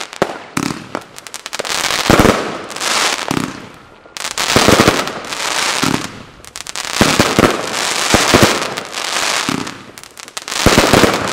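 Category 2 firework fan cakes firing in a chained sequence: repeated low launch thuds, each followed by a dense wave of crackling as the crackling stars break. The volleys come about every one to two seconds and swell and fade in turn.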